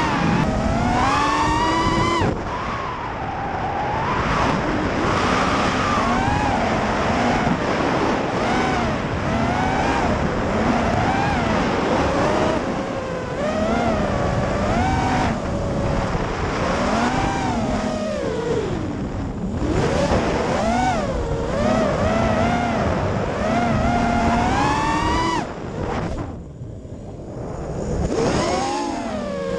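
FPV quadcopter's electric motors and propellers whining, the pitch rising and falling constantly with the throttle, heard from the quad's onboard camera. About four seconds from the end the whine drops away briefly, then climbs back.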